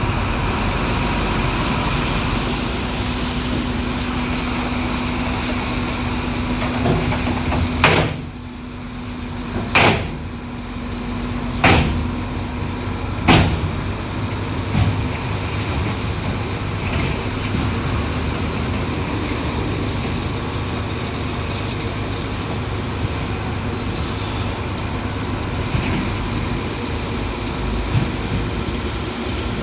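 Heavy diesel earthmoving machinery running steadily, with four sharp bangs about two seconds apart around the middle.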